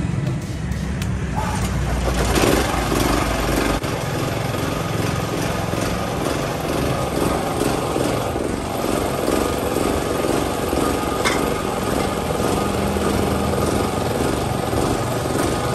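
The air-cooled single-cylinder engine of a freshly overhauled portable generator, running steadily with an even pulsing beat.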